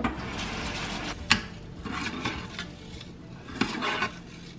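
A utensil stirring and scraping in a cooking pot, with clinks of cookware and a sharp knock about a second in.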